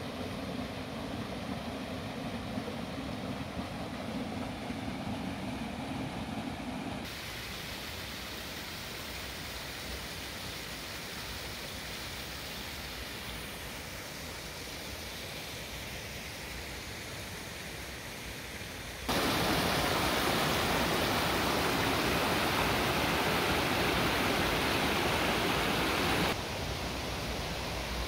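Waterfall water falling and splashing: a steady rush. It jumps abruptly to a different, thinner sound about a quarter of the way in. About two-thirds in it turns much louder and brighter for about seven seconds, then drops back.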